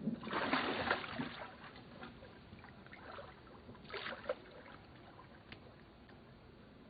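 Water splashing: a loud splash in the first second or so, then smaller splashes and another short splash about four seconds in.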